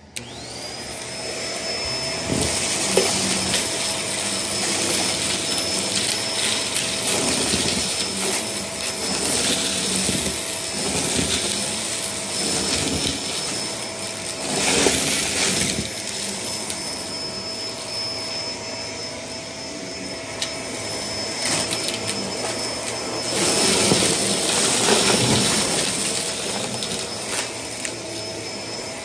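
Upright vacuum cleaner spinning up to speed and then running with a steady motor whine while it sucks up confetti and sequins from a shag rug. The rattle and hiss of debris going up the vacuum get louder in two surges, about halfway through and a few seconds before the end.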